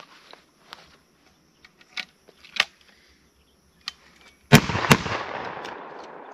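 Two 12 gauge shotgun shots from a side-by-side double-barrel fired in quick succession, about half a second apart, with a long echo trailing off; faint clicks of the gun being handled come before them.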